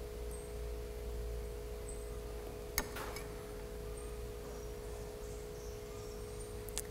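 Faint steady hum of a few held tones over a low rumble, with a single sharp click a little under three seconds in.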